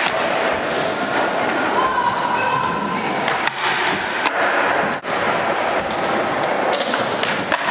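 Skateboard rolling across skatepark ramps and a ledge, with a few sharp knocks of the board, over a steady chatter of voices echoing in a large hall.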